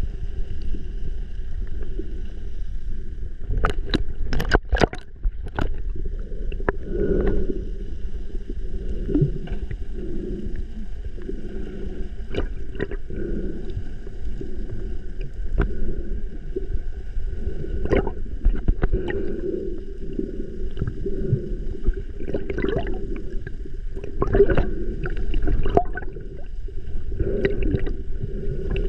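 Muffled underwater sound through a submerged camera: gurgling water and bubbles with scattered sharp clicks and knocks, a few of them clustered about four seconds in, over a steady low rumble and a faint steady high whine.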